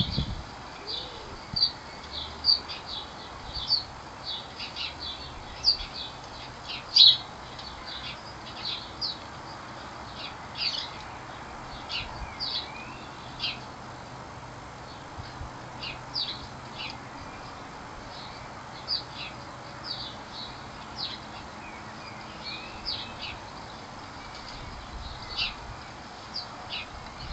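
Small garden birds chirping: short, sharp chirps repeated irregularly, about one or two a second, over a faint outdoor background.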